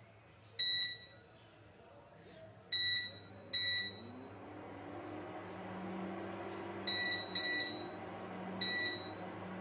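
Kiam induction cooktop's touch panel beeping at each button press, six short high beeps as it is switched on and its power set. From about four seconds in, the cooktop's running hum comes up, rising in pitch and then holding steady as it starts heating.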